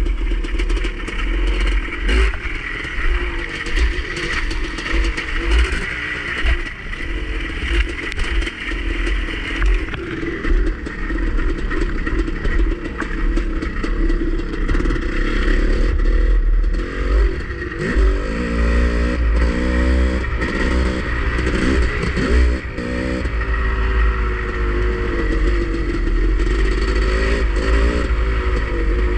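Dirt bike engine running under changing throttle, its pitch rising and dropping several times in the second half, with wind buffeting the microphone and gravel clattering under the tyres.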